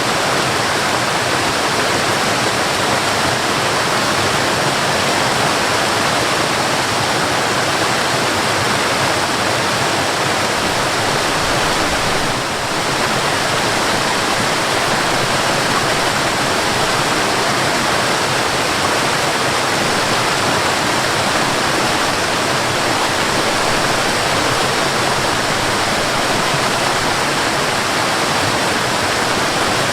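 Mountain waterfall: a steady, unbroken rush of falling water, dipping slightly for a moment about twelve seconds in.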